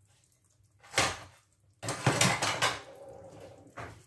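Wooden spoon knocking against a stainless steel cooking pot while stirring a vegetable stew: one knock about a second in, a cluster of clatters around two seconds in, and a lighter knock near the end.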